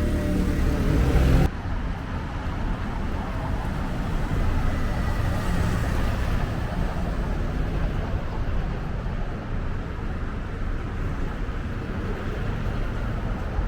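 Street traffic. A nearby vehicle engine runs loudly and cuts off suddenly about a second and a half in. Steady traffic rumble follows, with a car passing in the middle.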